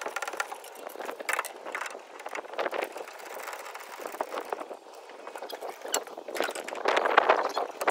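Steel C-clamps being fitted onto a pickup's bed rail and screwed tight by their T-handles: scattered clicks, clinks and scraping knocks of metal handling, with a busier run of knocks near the end.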